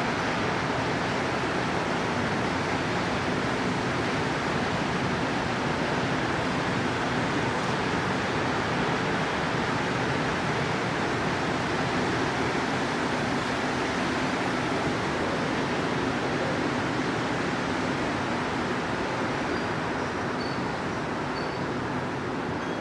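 Montreal Metro MR-73 rubber-tyred subway train running along an underground station platform: a steady rushing rumble with a faint low hum, easing slightly near the end.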